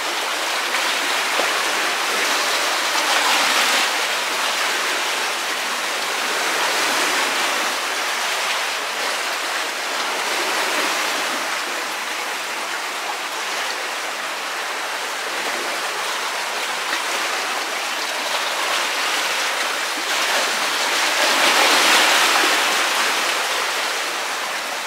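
Steady hiss of rushing water, swelling a little louder a few times, most clearly about twenty-two seconds in.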